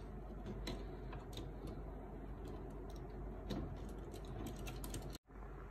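Faint, scattered light clicks and taps of fingers and a screwdriver working wire leads and their plastic connectors loose from a laser printer's fuser unit, the clicks coming quicker toward the end. The sound cuts out for an instant near the end.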